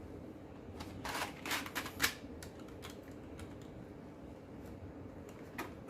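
Plastic Lego pieces clicking and rattling as they are handled and pressed together, a quick cluster of clicks about a second in, then a few scattered light clicks.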